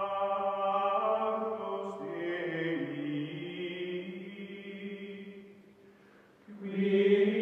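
Choral chanting music: long held vocal notes with a low drone, changing pitch about two seconds in, fading out around six seconds and swelling back loudly near the end.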